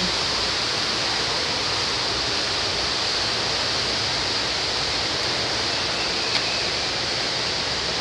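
A steady, even rushing noise with no breaks.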